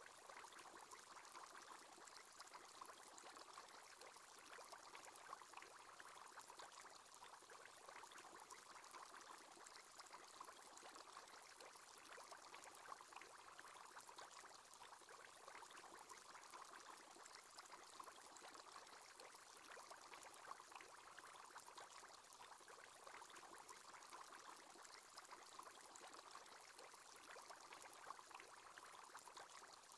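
Faint, steady bubbling of an aquarium aerator's bubble column: the screensaver's simulated aerator bubble sound.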